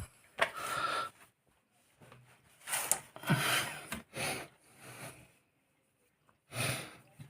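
A man's short, heavy breaths of effort, about half a dozen separate huffs, while he strains at a jammed drain pump filter.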